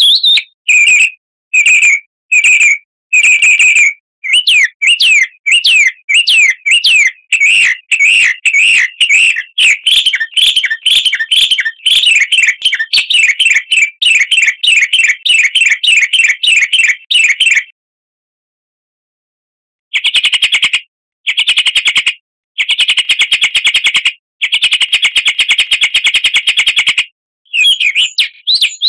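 Recorded songbird song used as a lure to get caged birds singing: long runs of fast, rapidly repeated high chirps, then after a silent break of about two seconds, dense buzzy trills in phrases of a second or two.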